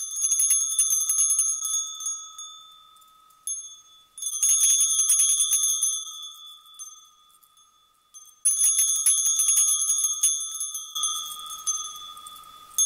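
Brass Sanctus bells on a handle shaken in three bursts about four seconds apart, each a quick jangle of strikes followed by a long, slowly fading ring. It is the ring that signals the moment of consecration at the altar.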